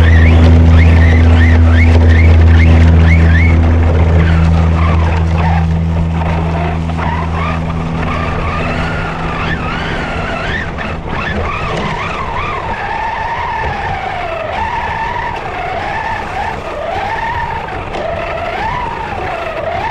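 Background music fades out over the first several seconds. The HPI Trophy Truggy RC car's motor whines, its pitch rising and falling with the throttle, over the rough noise of its tyres running on a leaf-covered dirt trail, heard from on board the car.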